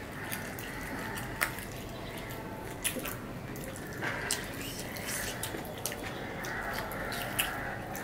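Two people eating rice and curry with their hands: wet chewing and lip-smacking, with irregular sharp smacks about once a second.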